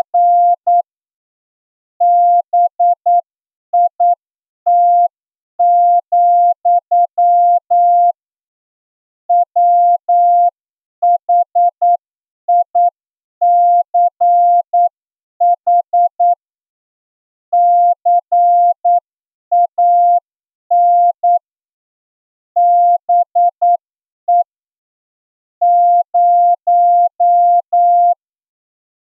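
Morse code sent as a single steady beeping tone, keyed in short dots and longer dashes at a slow, even pace with gaps between letters and words. It is a plain-language English passage sent as a receiving test for an amateur radio licence exam.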